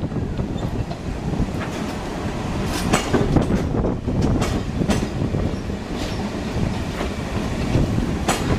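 R46 subway cars rolling past, a steady low rumble with irregular sharp wheel clacks.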